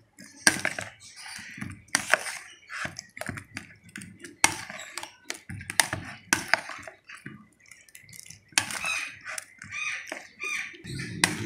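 Plastic spoon stirring boiled liver pieces into yogurt and ginger-garlic paste in a plastic bowl to marinate them: irregular clicks and knocks of the spoon and the pieces against the bowl.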